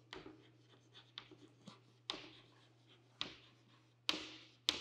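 White chalk writing on a green chalkboard: a series of light taps and short scratchy strokes as the letters are formed, the sharpest taps near the end. A faint steady low hum runs under it.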